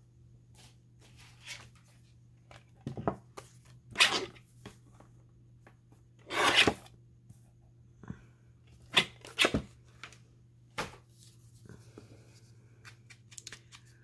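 Paper being handled and torn in about half a dozen short bursts, the longest one about six and a half seconds in, typical of tearing and distressing paper edges for a journal page.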